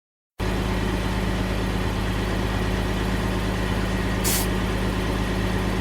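Lorry engine idling steadily, with a short hiss of air about four seconds in.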